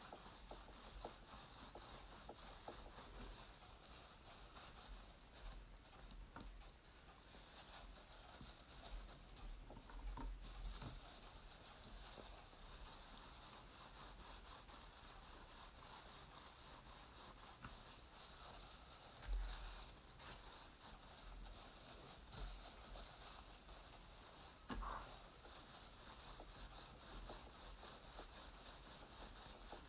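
Faint rubbing and rustling of a wet-felting roll being rolled back and forth over the table, working the wool of a felted rabbit (the roll-fulling stage).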